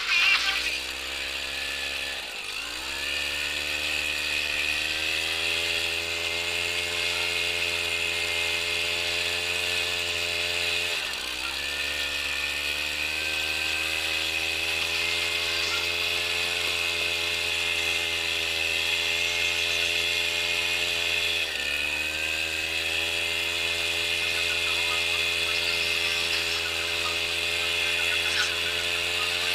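Benassi BL 85 walk-behind tractor's engine running steadily. Its pitch dips briefly and climbs back three times, roughly ten seconds apart.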